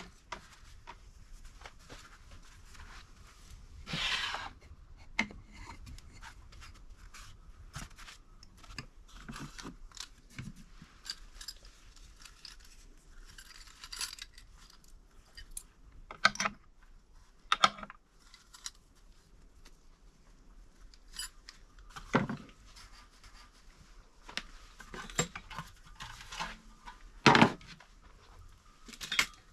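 Irregular handling noises: scattered sharp clicks, clinks and knocks of small hard objects over light rustling, the loudest knock near the end.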